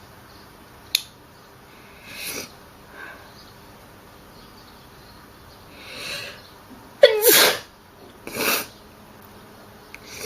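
A person's self-induced sneeze about seven seconds in: a drawn-in breath, then a sudden loud voiced burst, followed about a second later by a shorter, weaker breathy burst.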